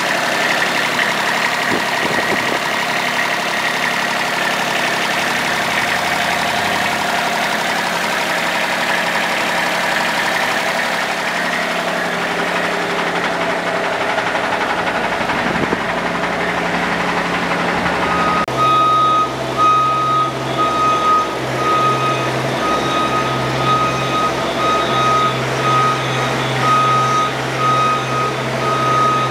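Diesel engine of a Genie GS2669RT rough-terrain scissor lift running steadily. About two-thirds of the way through, the lift's electronic alarm starts up, a repeating beep at one pitch over the engine, and the engine note drops to a steadier low hum.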